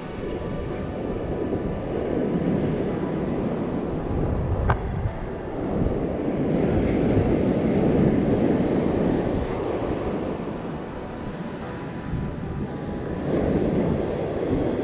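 Rushing noise of wind and sea that swells and eases every few seconds, with one brief click about a third of the way in.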